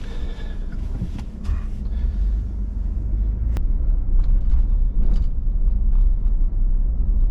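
Truck engine and road rumble heard from inside the cab as the truck pulls away towing a loaded car trailer. The deep rumble builds and grows louder after a couple of seconds, with a few light clicks.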